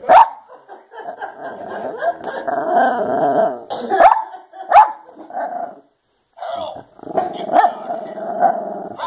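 Silky Terrier barking sharply several times at a Halloween decoration, with long stretches of low growling between the barks.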